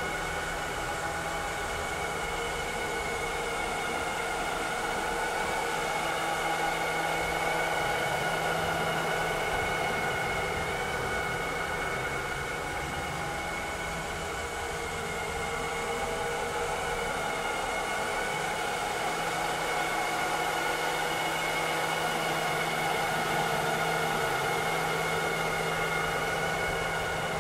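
Vileda robotic vacuum cleaner running: a steady motor whir with several high whining tones over a rushing noise. A low hum underneath fades about halfway through and comes back a few seconds later.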